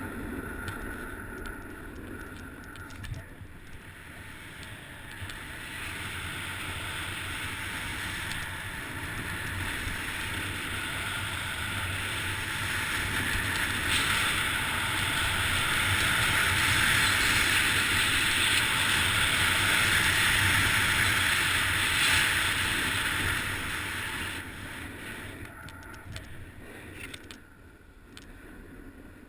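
Skis sliding and scraping over packed snow, with wind rushing past the microphone on a downhill run. It is a steady hiss that grows louder through the middle and fades off near the end.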